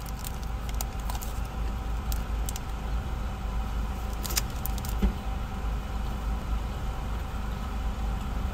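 Eating a crunchy quinoa chocolate bar from its foil wrapper: a few scattered sharp crackles and crunches from chewing and the handled foil, over a steady low hum in the car cabin.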